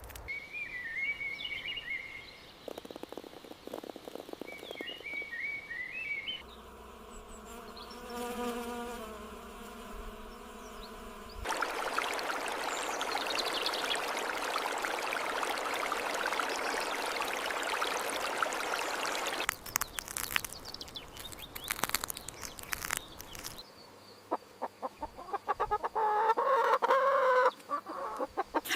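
Chickens clucking and a rooster crowing, in separate stretches. About halfway through there are some eight seconds of steady rushing noise, followed by scattered clicks and knocks.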